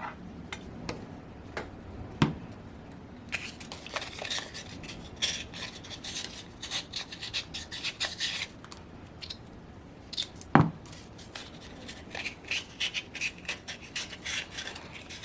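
Hand scraping and rubbing at old gunk on small metal glow-engine parts, in quick runs of short strokes, with two sharp knocks, the louder one about ten seconds in.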